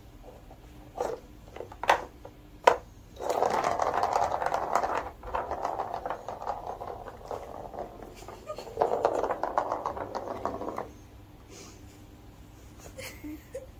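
A few sharp knocks as a plastic ball is batted inside a cat's circuit track toy, then the ball rattling as it rolls around the plastic track, in two long runs with a short pause between them.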